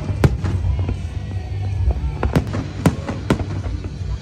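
Aerial fireworks shells bursting with sharp bangs: one strong bang about a quarter second in, then a quicker run of bangs from about two seconds in. Music with a steady bass plays underneath.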